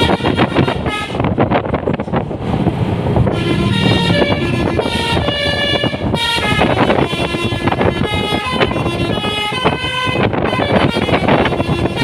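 Bus telolet horn (Basuri multi-tone air horn) playing a fast melodic tune, its notes changing several times a second, over engine and road noise. There is a short break in the tune about two seconds in.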